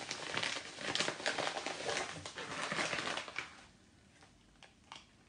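Paper wrapping crinkling and rustling as it is handled and pulled open, dense crackles for about three and a half seconds, then a few faint clicks near the end.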